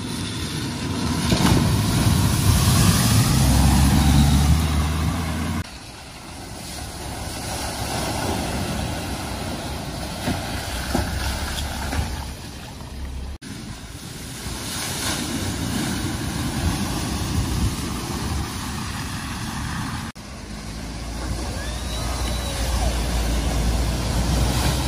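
Cars driving through a flooded ford one after another: engines running while the tyres throw water up in a rushing splash. There are four separate passes, each cut off abruptly.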